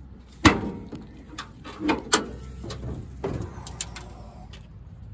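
Hood of a 1978 Chevy squarebody pickup being opened: a sharp clack about half a second in as the latch releases, then squeaks, creaks and clunks from the old hood hinges and springs as the hood is lifted.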